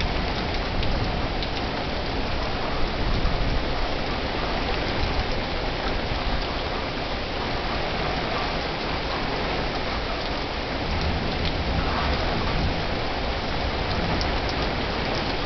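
Heavy rain pouring down steadily in a thunderstorm, with a brief swell of low rumble about twelve seconds in.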